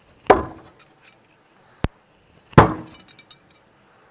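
Throwing knives hitting a wooden pallet target twice, about two seconds apart. Each hit is a sharp knock followed by a short ring, with a brief click between them and faint metal clinks after the second.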